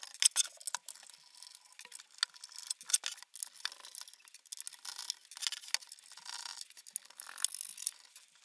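A Phillips screwdriver turning out the small screws of a metal NVR case: irregular light clicks and scratches of the driver tip in the screw heads, with the metal case ticking as it is handled.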